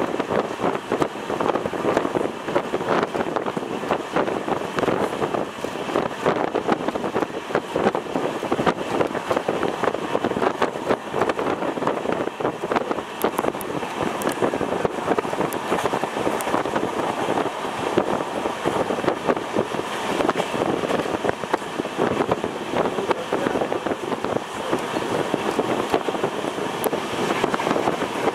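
Steady rushing noise with a dense, rapid clatter from a fast-moving Indian Railways train, heard from aboard: wheels running on the rails, with wind.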